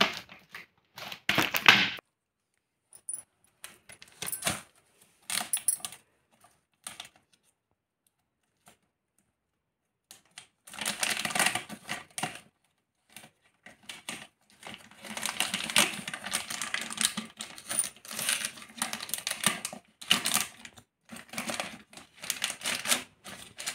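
Clear plastic packaging of a hula hoop kit crinkling and rustling in a small child's hands, with the plastic tube sections inside knocking and clicking. It comes in irregular bursts, busiest in the second half.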